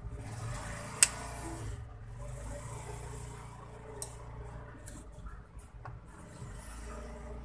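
A sharp click about a second in, then a smaller click about four seconds in as a screwdriver tip bridges the motherboard's power-switch pins, over a low steady hum. No POST beep comes from the speaker on the board's SPK header even though the RAM is removed, a sign that the board is not starting its self-test.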